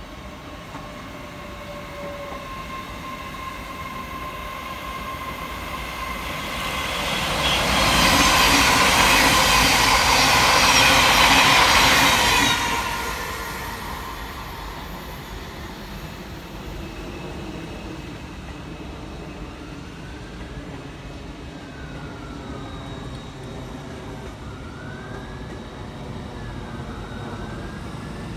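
A train passes through the station: its noise builds over several seconds, stays loud for about five seconds, then fades to a lower steady rumble. Later a faint wailing tone rises and falls repeatedly.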